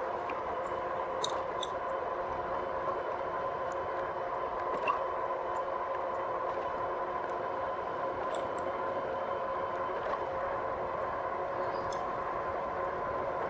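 Rear hub motor of a 2018 Rad Power Bikes RadMini e-bike running under way: a steady whine of several tones, with faint scattered high ticks. The rider hears it as a grinding noise in the back of the hub motor and is not sure whether it is a concern.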